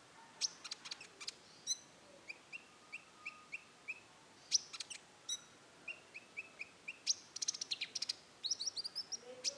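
Konin songbird singing: sharp high chips, runs of short evenly spaced notes at about three a second, and fast rattling trills, the rapid 'roll tembak' delivery.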